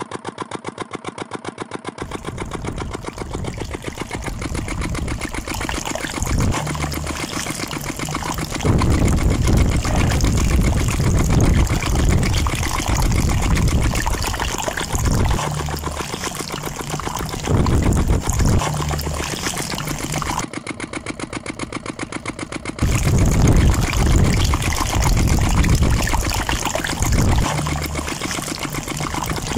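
Miniature model engine's small motor running steadily with a fast, even chugging pulse, driving a rubber-band belt to a toy water pump. Stretches of louder low rumble come and go over it.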